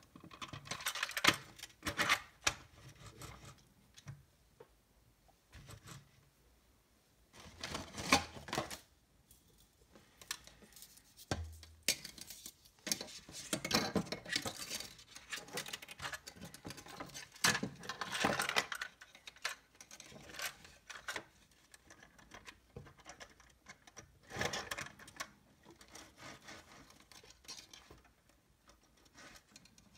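Hands handling a plastic OO-gauge model railway coach and a length of model track on a cutting mat: irregular clicks, taps and rustles coming in clusters with short gaps between.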